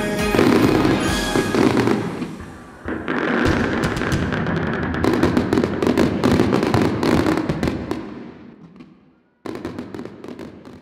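Fireworks bursting and crackling, with music fading out in the first two seconds. The crackling dies away about eight seconds in, and a shorter burst of crackle follows near the end.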